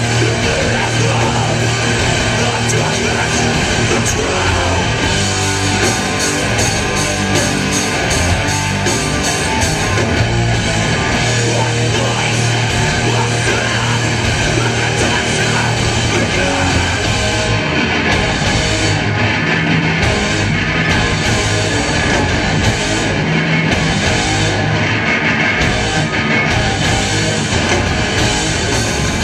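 Heavy metal band playing live: loud, dense electric guitars with drums, running without a break.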